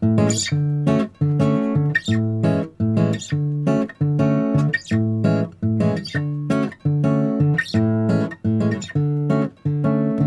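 Background music: plucked acoustic guitar playing chords in a steady, even rhythm.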